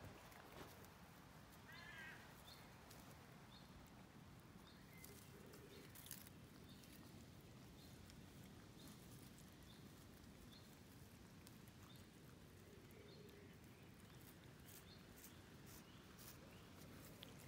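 Near silence: faint rural outdoor ambience with faint short chirps recurring throughout and occasional soft ticks.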